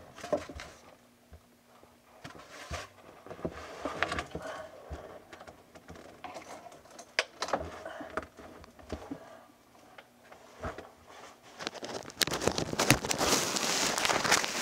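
Handling noise of a handheld camera: scattered small knocks and rustles as it is moved about, turning into loud, continuous rubbing and rustling in the last couple of seconds.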